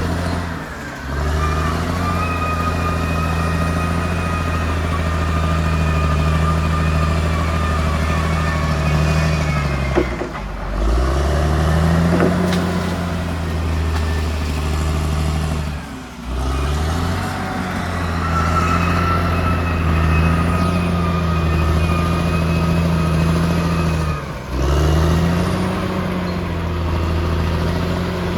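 CAT D6R XL bulldozer's diesel engine running under load with a high whine on top. The engine note drops briefly and climbs back about four times.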